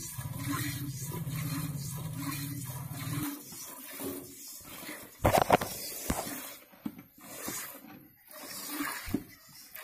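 Milk squirting in quick rhythmic streams into a steel pot as a cow is milked by hand, about two squirts a second. A low hum runs underneath and stops about a third of the way in, and a sudden loud knock comes about halfway through.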